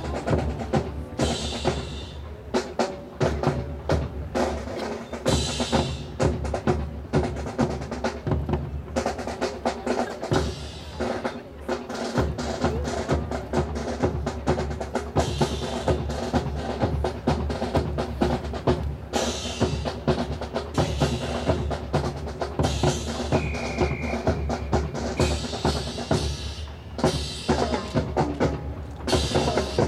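Marching drums, snare and bass drum, playing a continuous cadence with rolls and sharp rim strikes for a ceremonial honor guard rifle drill.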